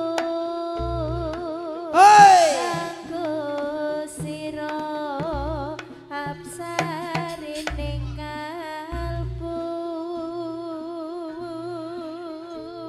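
Live gamelan and drum band accompaniment for a masked folk dance: a wavering, ornamented melody held over a steady low note, with deep drum beats at uneven intervals. About two seconds in, a brief loud cry with a falling pitch rises over the music.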